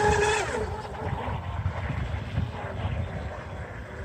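Brushless electric motor of an RC catamaran speedboat whining steadily at full speed, growing fainter after about half a second as the boat runs away across the water. Low wind rumble on the microphone underneath.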